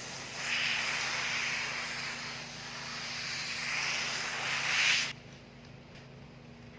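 Water spraying onto the car's roof channel to rinse out dirt: a steady hiss that swells and stops abruptly about five seconds in.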